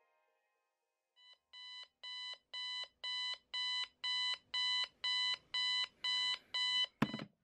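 Digital bedside alarm clock beeping, about two beeps a second, getting louder as it goes on. A sudden loud knock near the end cuts the beeping off.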